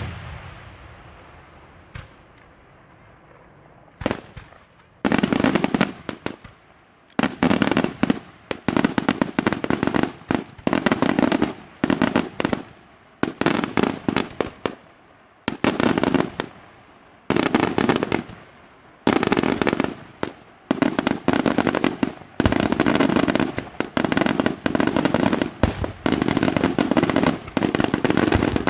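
Daylight fireworks: a few single bangs with echoing tails, then from about five seconds in, repeated volleys of rapid-fire reports, each volley lasting a second or two, with short gaps between them.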